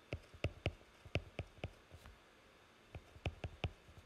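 Stylus clicking and tapping on a tablet while letters are handwritten: about a dozen short, sharp clicks in two runs, one in the first second and a half and another from about three seconds in, with a pause between.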